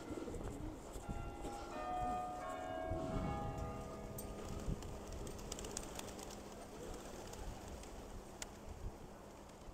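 Rotherham Minster's church bell ringing the 11 am bell. A cluster of struck notes comes about a second in, and a low tone hangs on and fades away over several seconds.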